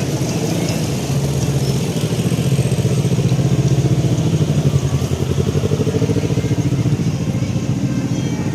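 Motor vehicle engine running close by: a low, rapidly pulsing rumble that swells a little toward the middle and eases off again.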